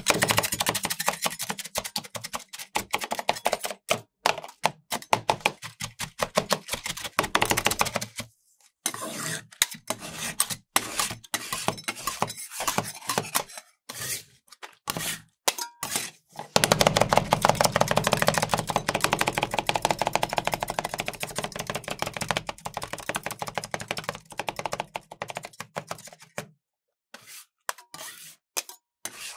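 Metal spatulas chopping and tapping rapidly on a rolled-ice-cream cold plate, in quick runs of sharp strikes, breaking up Takis tortilla chips into the ice cream base. About halfway through the chopping turns denser and more continuous, with scraping, then stops near the end.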